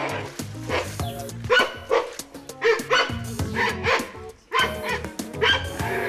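Giant pandas calling in a string of short, repeated calls while they tussle, over background music with steady low notes.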